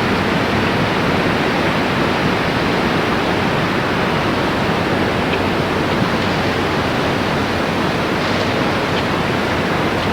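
Steady, loud rushing noise without breaks, like surf or wind, with no other clear sound standing out.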